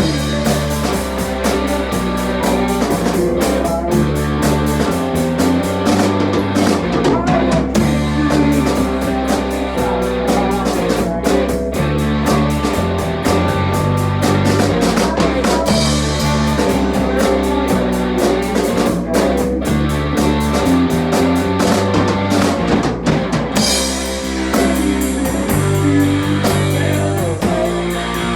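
Rock music played on a band's instruments: drum kit, bass and guitar, loud and continuous.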